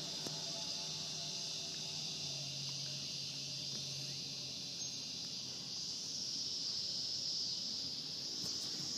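Steady, high-pitched drone of an insect chorus, with a faint low hum underneath.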